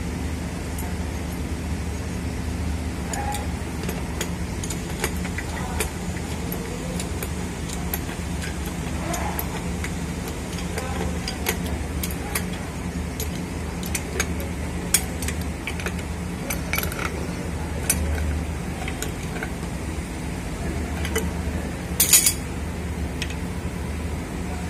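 Scattered metallic clicks and clinks of a socket wrench working the cylinder-head bolts of an air compressor pump, with a louder clatter near the end, over a steady low hum.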